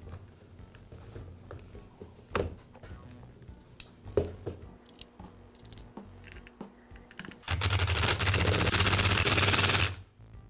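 Plastic tool housing clicking and knocking a few times as it is pressed into place, then a power-tool motor running loudly for about two and a half seconds and cutting off suddenly.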